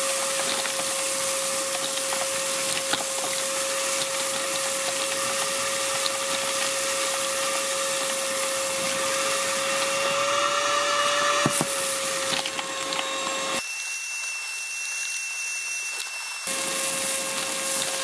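Parkside PNTSA 20-Li A1 20 V cordless wet/dry vacuum running with a steady motor whine and rushing air. It sucks up damp sand and small pebbles, which crackle through the nozzle.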